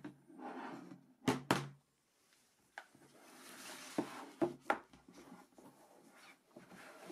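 Cardboard phone boxes and phones being handled on a tabletop: two sharp knocks just over a second in, a sliding, rubbing hiss, then more knocks as the boxes are set down.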